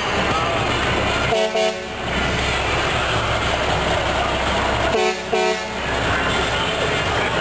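Air horn of a red semi-truck tractor sounding two short chord-like blasts, one about a second and a half in and one about five seconds in, with steady background noise between them.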